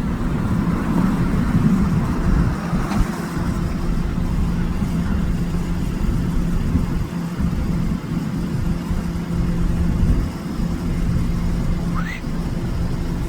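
Boeing 747-8F freighter's jet engines running: a steady low rumble with a constant hum. A short rising chirp sounds about twelve seconds in.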